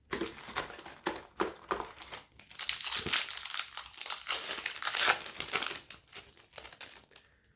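Foil wrapper of a hockey card pack crinkling as it is handled and opened by hand, densest and loudest over the middle couple of seconds, with scattered crackles before and after.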